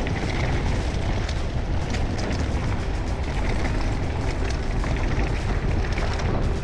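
Wind buffeting an action camera's microphone while riding a mountain bike: a loud, steady rumble, with small rattles and clicks scattered through it.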